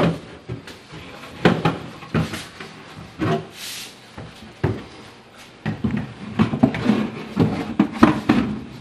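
Lazy susan cabinet parts being handled and set in place: irregular knocks and clunks, a short scraping slide a few seconds in, and a quick run of knocks near the end.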